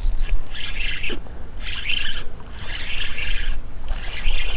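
Rhythmic rasping rubs, about one a second, over a low rumble: handling noise on a chest-mounted camera's microphone while a bass is reeled in and landed from the bank.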